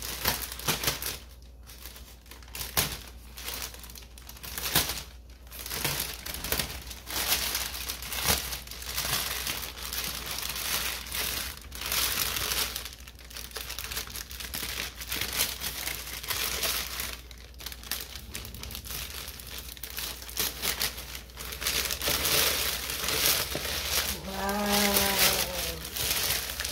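A white carrier bag crinkling and rustling irregularly as it is handled and cut open with scissors.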